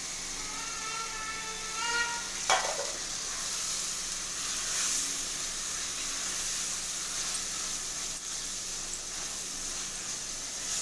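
Oil-fried masala with peas and paneer sizzling in a frying pan while a spatula stirs and scrapes through it, with a sharp knock about two and a half seconds in.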